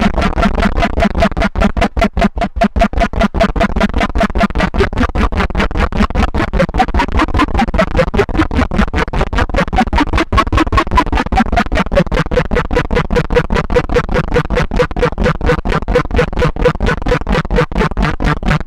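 Moog DFAM analog percussion synthesizer running a fast, even sequence of pulsed notes through a Strymon Ola chorus pedal.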